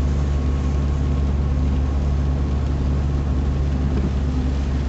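Car cabin noise while driving on a wet road: a steady low engine and road rumble under an even hiss, with no sudden sounds.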